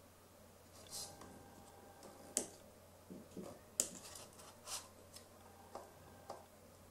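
Faint, irregular small clicks and handling noises from the plastic of wireless sport headphones being turned over while feeling for the USB charging port.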